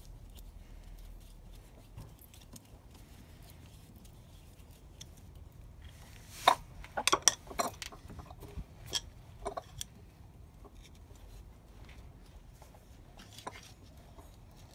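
A burst of sharp metallic clinks and clicks about six to ten seconds in, with one more near the end, from a screwdriver and a loosened Jubilee hose clip being worked off a coolant hose on a scooter's cylinder head.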